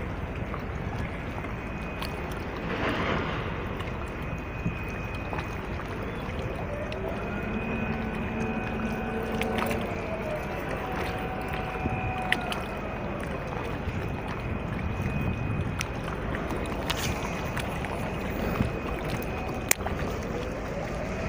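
Steady wind and water noise on an open shoreline, with a distant motor droning and slowly rising and falling in pitch as it passes. A few sharp clicks from handling the rod and reel are heard, one plainly near the end.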